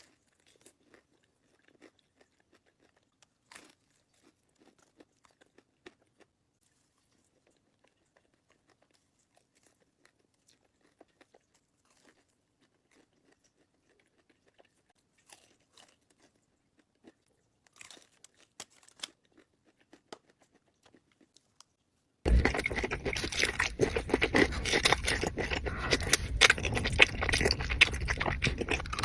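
Close-miked chewing and crunching of crispy fried Wingstop food, with sparse, faint bites and chews at first, then a much louder, dense run of crunching from about three-quarters of the way in.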